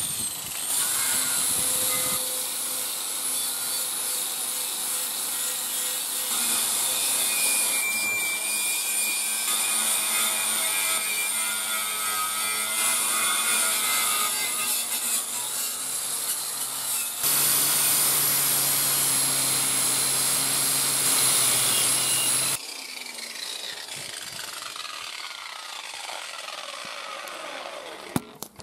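Angle grinder with a twisted-knot wire cup brush running against a metal engine oil sump, scrubbing off the old paint with a steady high whine. Near the end the sound drops and a falling whine follows as the grinder winds down.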